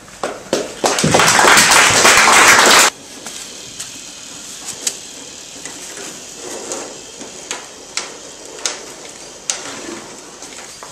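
A short burst of applause, many hands clapping for about two seconds, that cuts off abruptly. It is followed by scattered light clicks and knocks over a quiet room.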